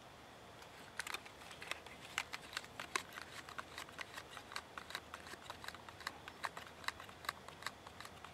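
Irregular light clicks and crackles of hands handling the small plastic stabilizer and its packaging, starting about a second in.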